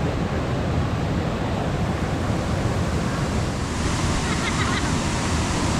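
Waterfall water pouring steadily into a deep pool, a continuous rushing hiss.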